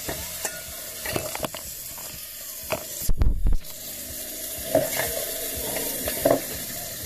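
Smoked streaky bacon frying in a hot pan, a steady sizzling hiss, with scattered clicks and knocks of kitchen handling and a heavier thud about three seconds in.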